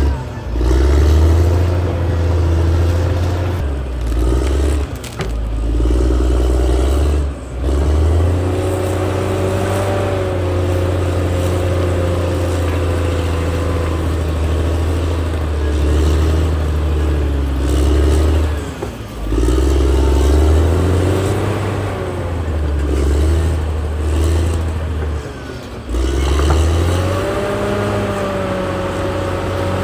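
Caterpillar D6R XL bulldozer's diesel engine working, its note rising and falling again and again as it pulls, and easing off briefly a few times.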